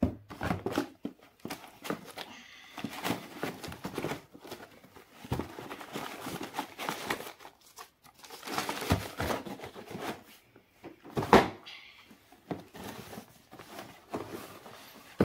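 Rustling and crinkling of tissue paper and shopping bags as shoes are packed into a cardboard shoebox, in irregular handling bursts, with a few knocks of the box and shoes; the loudest is a sharp knock about two-thirds of the way through.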